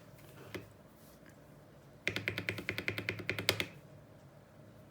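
A single key click about half a second in, then a fast run of clacky keystrokes lasting about a second and a half. The sound comes from a mechanical keyboard key fitted with a freshly lubed AKKO Rose Red linear switch.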